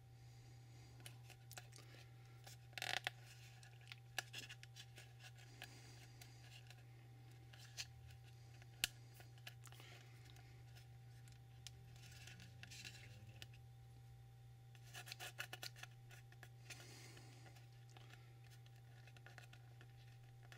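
Faint, scattered clicks and snaps of small plastic fins being worked loose and broken off the inside of a plastic battery cover, with a cluster of clicks about three-quarters of the way through. A steady low hum runs underneath.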